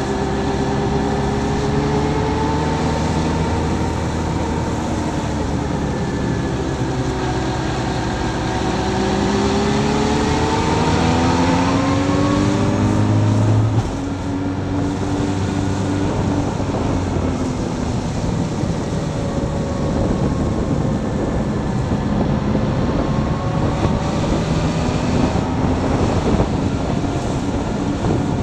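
Motorcycle engine running under way, its pitch rising and falling as the rider works the throttle and gears, over steady wind and road noise. The sound changes abruptly about halfway through, at a cut.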